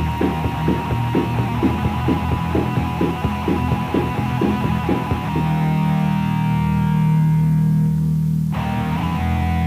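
Raw black metal from a lo-fi rehearsal/demo recording: distorted electric guitar over a steady pulsing beat, which gives way about halfway through to a held, ringing distorted chord.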